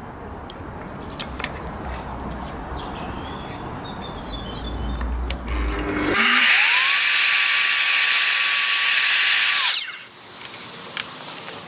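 Evolution F255SMS sliding mitre saw with its 255 mm multi-material TCT blade starting up about six seconds in and cutting through a small piece of MDF. A rising whine settles into a steady tone under the loud noise of the cut for about three and a half seconds, then cuts off suddenly. Before it there are only quieter handling sounds and a few clicks.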